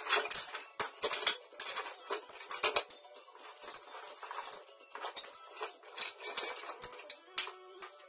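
Metal tools and parts clinking and clattering as they are handled, in irregular knocks with the sharpest clank about a second in.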